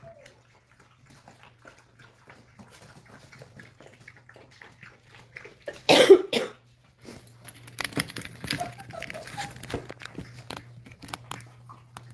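A person coughs once, loud and short, about halfway through. Around it are scattered faint clicks and rustles over a steady low hum.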